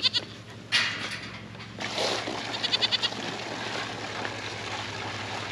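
Goats bleating twice, short trembling calls, while water starts running steadily into their trough about two seconds in.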